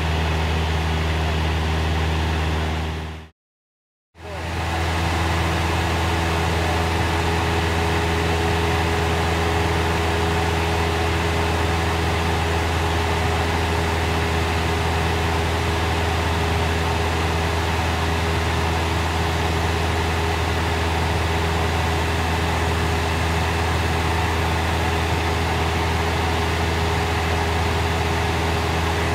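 Cessna 172's four-cylinder piston engine and propeller droning steadily at cruise power, heard inside the cabin. The sound cuts out completely for under a second about three seconds in, then resumes unchanged.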